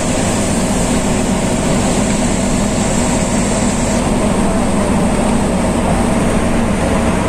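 Boat engine running steadily with a loud, even low drone, heard on board.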